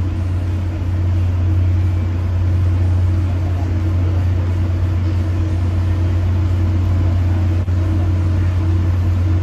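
Steady low hum of a Tri-Rail commuter train heard from inside the passenger coach while it stands at the station platform.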